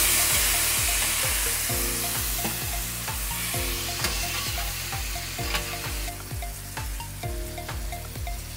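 Chicken and potato strips sizzling on a flat-top griddle while a metal spatula stirs and scrapes them, with a few sharp taps of the spatula on the steel; the sizzle is loudest at the start. Background music with a steady beat plays underneath.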